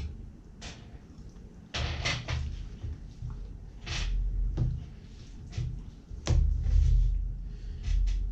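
A boning knife cutting and scraping along a Spanish mackerel's backbone on a nylon cutting board, in several separate strokes, with low thuds and knocks as the fish is handled on the board.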